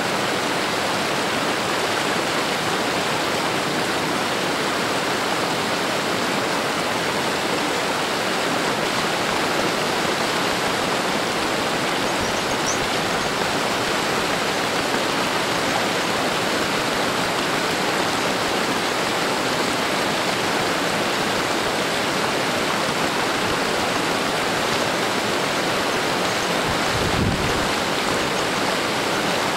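Shallow stream flowing over stones and pebbles: a steady, even rush of water.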